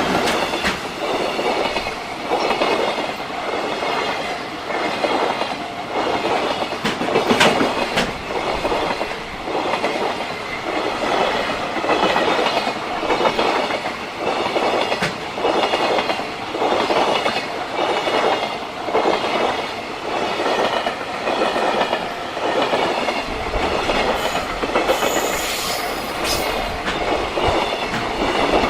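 JR Freight freight train passing close by: a long, steady run of wagon wheels clattering over the rail joints, about one clatter a second, with higher ringing tones from the wheels and rails throughout.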